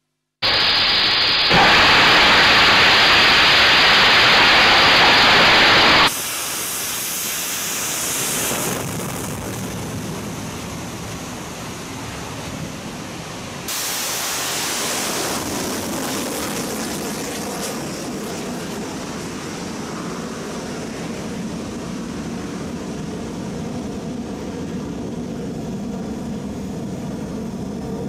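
Rocket engine exhaust noise from launches: a loud, steady rushing noise that changes abruptly about 1.5 and 6 seconds in. About 14 seconds in comes a new stretch from a small rocket lifting off its launch rail, which stays steady as the rocket climbs away.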